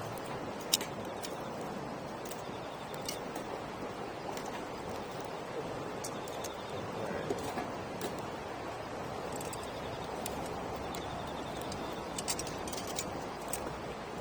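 Wood campfire burning with a steady hiss and scattered sharp crackles and pops, one loud pop about a second in.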